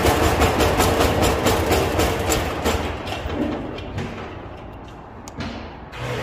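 Power tiller's single-cylinder diesel engine running, then shut off: its firing strokes slow and fade as it coasts to a stop over about three seconds. Right at the end it is running again.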